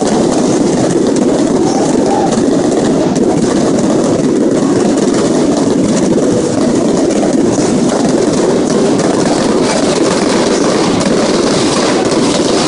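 Loud, steady roar of a large football stadium crowd cheering.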